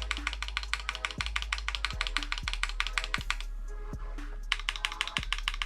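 Fast typing on a Keychron Q6 full-size mechanical keyboard: a quick, dense string of keystroke clacks that stops for about a second around three and a half seconds in, then resumes. The large case is audibly resonating, which the owner puts down to the board's size and notices most on the navigation cluster, numpad and enter key. Background music with a steady kick-drum beat runs underneath.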